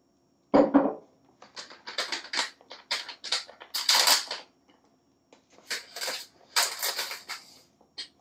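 A knock on the wooden bench about half a second in, then a plastic pouch of citric acid powder crinkling in quick crackly bursts as it is opened and scooped from, with a small click near the end.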